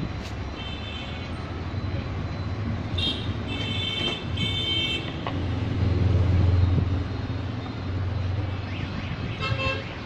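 Road traffic passing: a low engine rumble that swells about six seconds in, with a vehicle horn tooting three times in quick succession around the middle and once more near the end.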